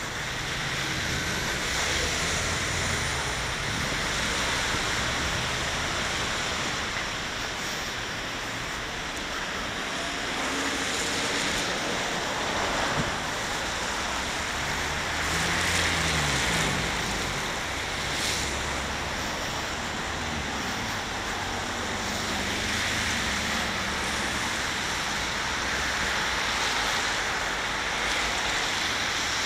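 Wind rushing and buffeting on the microphone of camera glasses, a steady rushing noise with an uneven low rumble, mixed with the hiss of traffic on a wet street.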